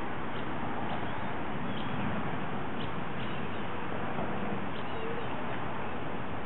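Steady outdoor background hiss with faint, scattered high chirps of small birds.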